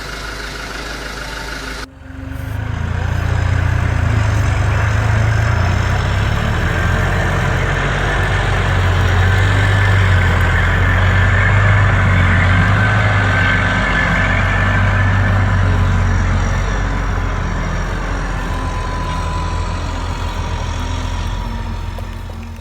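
Heavy diesel truck engine running steadily with a deep low hum; it drops out briefly about two seconds in, comes back louder, and eases off slightly near the end.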